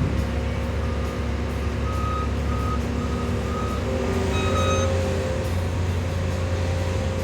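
Diesel engine of heavy equipment running steadily, with a backup alarm starting to beep about two seconds in, roughly two beeps a second, as a machine reverses.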